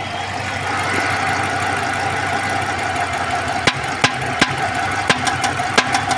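Dodge engine idling steadily, and from a little past halfway a run of sharp, irregular pops, the firecracker-like noise of a misfire.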